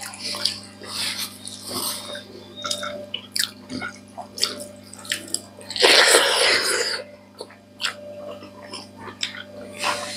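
Close-up mouth sounds of people eating rice and curry with their hands: wet chewing, lip smacks and many small clicks, with one louder, noisier rasp lasting about a second around six seconds in as a mouthful is taken.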